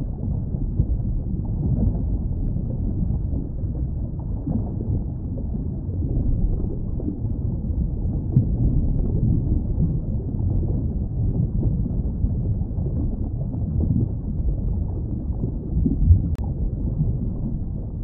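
Underwater ambience: a steady, muffled low rumble of moving water, with nothing high-pitched above it.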